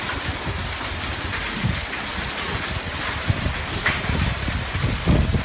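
Heavy hail and rain pouring down in a steady rush, with scattered sharp clicks of hailstones striking and wind rumbling on the microphone.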